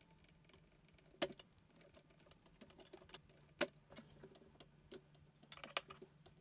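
Spring-loaded desoldering pump (solder sucker) firing twice, two sharp snaps about two and a half seconds apart, as it clears solder from a voltage regulator's pads. A few light handling clicks follow near the end.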